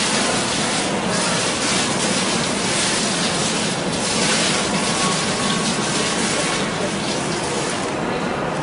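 Digital water curtain: patterned rows of drops falling from an overhead nozzle bar into a basin, a steady splashing hiss that thins out near the end as the fall stops.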